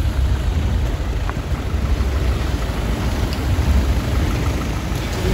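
Steady low rumble of road vehicles with engines idling, like traffic at an airport pick-up kerb.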